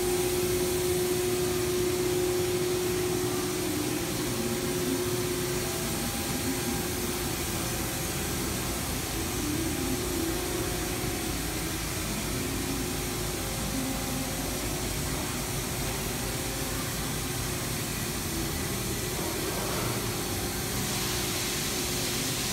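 Steady whirring noise of running machinery and fans, with a steady hum that fades after about six seconds.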